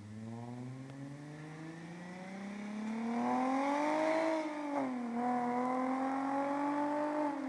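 V6 engine of a Mercedes-Benz C230 with a resonator-delete custom exhaust, accelerating: the exhaust note climbs steadily for about four seconds, drops with a gear change, then pulls again and eases off at the end.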